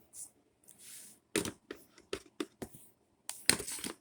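Hands handling small objects: a soft rustle, then a quick run of sharp clicks and taps, and a louder scrape near the end.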